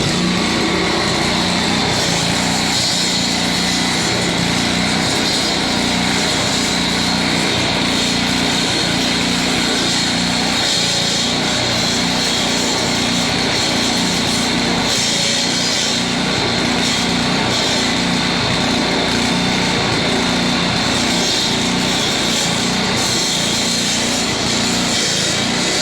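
A small engine running steadily at an even, unchanging level.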